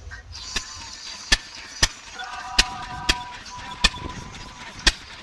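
Vintage single-cylinder stationary engine, a 1920s Lister 8 hp, running slowly with sharp separate exhaust bangs. About seven bangs come at uneven gaps of half a second to a second.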